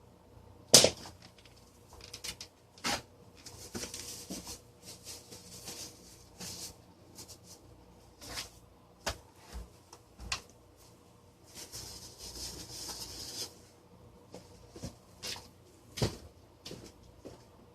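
Plastic parts of a desk fan being handled and worked apart: a sharp clack about a second in, scattered knocks and clicks, and two longer stretches of scraping and rubbing.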